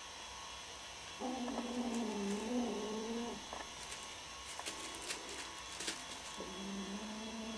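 Kitten growling twice, each a low, drawn-out growl of about two seconds, while holding a caught gecko in its mouth: a possessive growl guarding its prey. A few faint ticks fall between the two growls.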